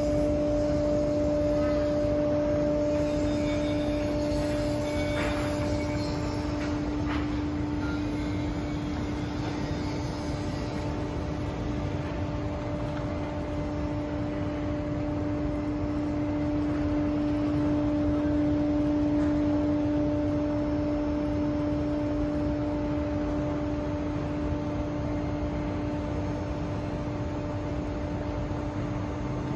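A steady mechanical hum with a constant pitch, over an even rushing background noise.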